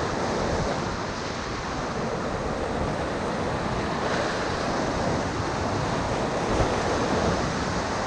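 Whitewater of the Ocoee River rushing steadily around a raft.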